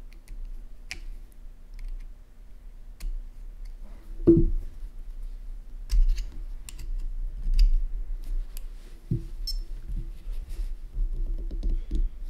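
Small clicks and knocks of a brushed RC motor being handled, its loose end bell turned around on the motor can and its wires shifted, with a few firmer knocks midway.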